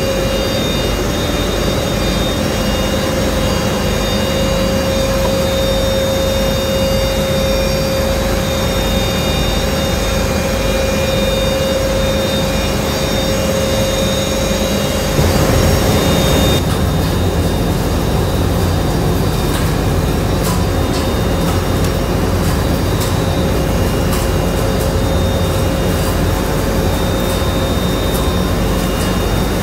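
Olive oil mill machinery running: a steady loud drone with a constant whine. About halfway through it briefly gets louder, then changes to a different machine hum with fine, fast ticking over it.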